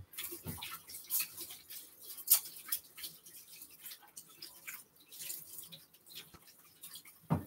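Hands being washed under a running kitchen sink tap: water splashing with small irregular clicks and rustles, and one low thump near the end.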